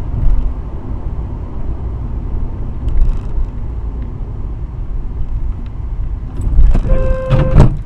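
Steady low road and engine rumble of a moving car picked up by a dash cam. Near the end a car horn sounds briefly, followed by a few sharp knocks.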